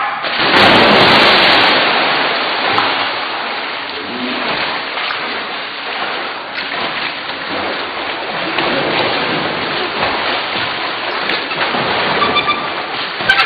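Two men jumping into a swimming pool with a big splash, followed by steady splashing and churning water as they swim overarm strokes.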